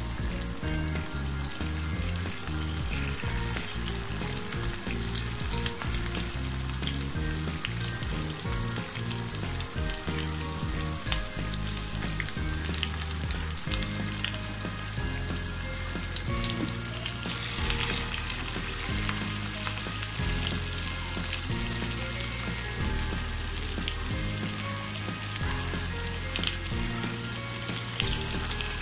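Battered chicken pakora pieces deep-frying in hot oil, a steady sizzle full of fine crackles and pops. More pieces go into the pan one by one.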